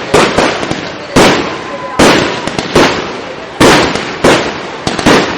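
Aerial firework shells bursting in quick succession: a sharp bang every half second to second, each trailing off briefly before the next.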